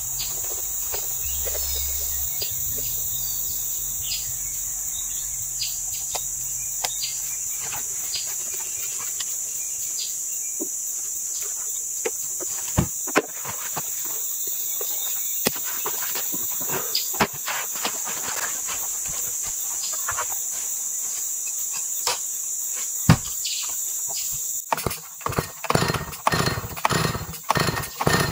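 Steady high-pitched drone of rainforest insects, with scattered clicks and knocks. About 25 seconds in, a chainsaw starts and runs in uneven revving bursts.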